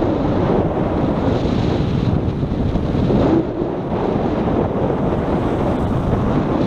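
Wind buffeting the microphone in a steady rumble, over surf washing against the rocks of a jetty.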